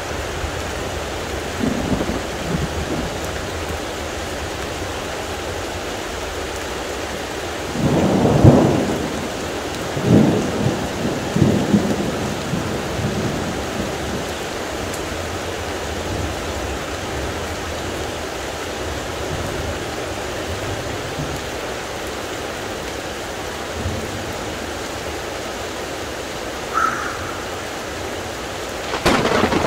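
Heavy rain falling steadily, with thunder rumbling about eight seconds in, the loudest moment, and again over the next few seconds. A sharper thunderclap comes near the end.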